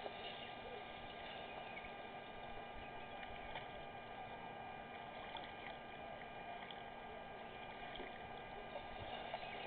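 Steady outdoor background noise with a constant electrical hum of several fixed tones, and a few faint short chirps.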